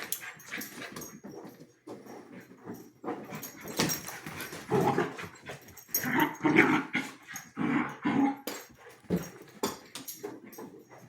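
Husky puppy and another dog play-fighting: irregular growls, whimpers and yips, mixed with sharp clicks and knocks as they scramble about.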